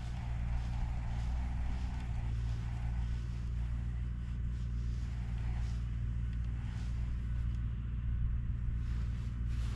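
Steady low hum of a running motor, even throughout with no change in pitch.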